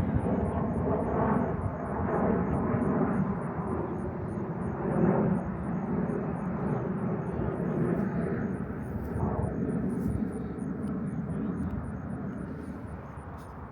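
Jet airplane flying by, a steady rumble that eases a little near the end.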